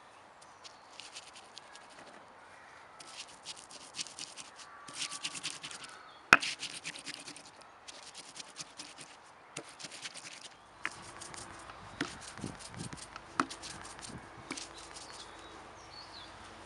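Stone pestle grinding wet seeds against a stone mortar: repeated gritty scraping strokes in short runs, crushing the seeds to a paste, with clicks and one sharp knock about six seconds in.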